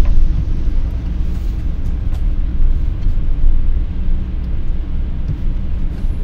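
Volkswagen Transporter campervan driving, a steady low rumble of engine and road noise.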